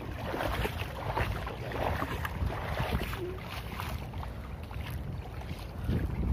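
Wind rumbling on the microphone, with scattered rustles and clicks of handheld camera and fish handling.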